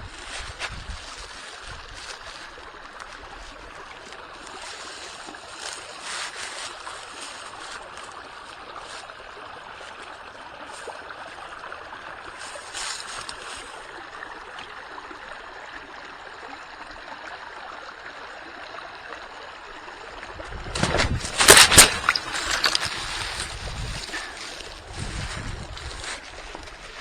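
Small creek water running steadily, with a loud gust of wind buffeting the microphone about 21 seconds in.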